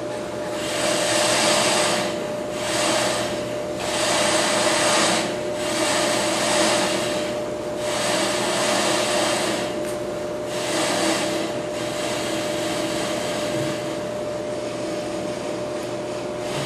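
Ammco brake lathe running with a steady motor hum while its cutting bits scrape through a layer of rust on the spinning brake rotor. The scraping swells and fades about once a second as the bits are fed in by hand, then settles to a steadier, quieter cut after about twelve seconds.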